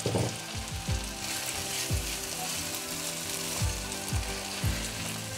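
Thick tomato jam sizzling in ghee in a pan, with sugar just stirred in, while a spoon stirs it and knocks against the pan every half-second to second. The ghee has separated from the cooked-down tomatoes, the last stage before the jam is done.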